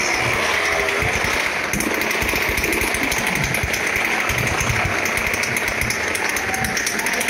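Several motorcycle engines running together in a fast, steady rattle.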